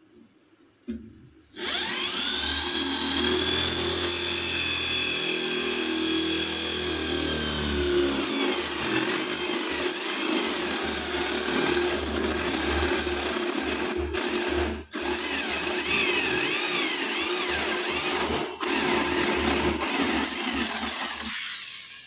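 Electric drill with a 25 mm flat spade bit boring a hole through laminate-faced plywood, the motor whining steadily under load. It starts about a second and a half in, cuts out briefly twice, and stops near the end.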